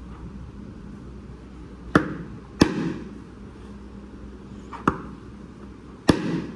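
Four sharp knocks, uneven in spacing, as a pinion gear is tapped onto the shaft of a 390-size motor to seat it tight. A faint steady hum runs underneath.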